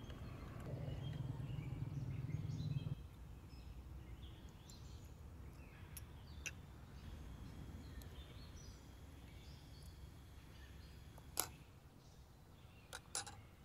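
Outdoor rural ambience with faint bird chirps. A low rumble fills the first three seconds and stops abruptly, and a few sharp clicks come near the end.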